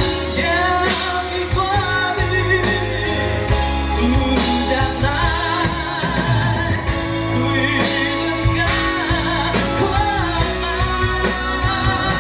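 A singer with a wavering vibrato singing over a live pop band with bass and drums.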